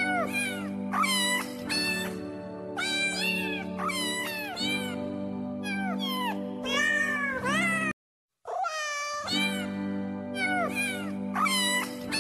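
A cat meowing over and over, meow after meow, over steady background music. The track drops to silence for about half a second around two-thirds of the way through, then starts over.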